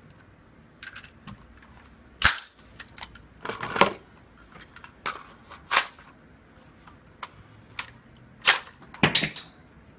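Sharp metallic clacks and clicks of a black semi-automatic rifle's action being worked by hand with no ammunition in it. They come at irregular intervals, loudest about two seconds in and twice near the end.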